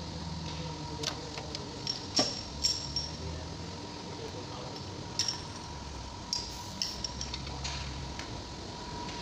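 Scattered metallic clinks and light knocks, the loudest about two seconds in, as a ratchet is worked on the belt tensioner and a serpentine belt is fitted over the engine's pulleys. A faint steady hum runs underneath.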